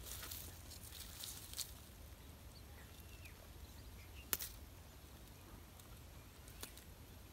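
Faint rustling and handling of a fishing line and hooks over a plastic bucket, with one sharp click a little over four seconds in and a softer click near the end.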